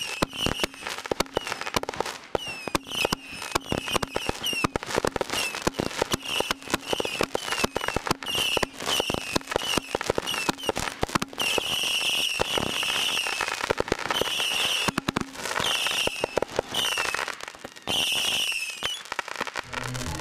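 Fireworks going off in a dense run of sharp crackling pops. Short high notes falling in pitch come about every half-second to two-thirds of a second for the first half, then give way to fewer, longer ones.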